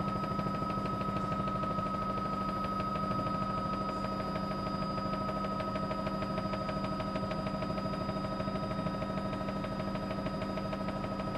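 Helicopter in flight: a steady turbine whine with several constant pitches over a fast, even beat from the main rotor.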